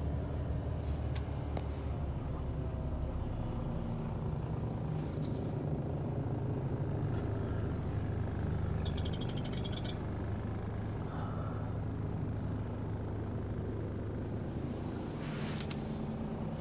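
Mercedes Actros 1843 tractor unit's 430 bhp Euro 6 diesel engine idling steadily, a low even rumble.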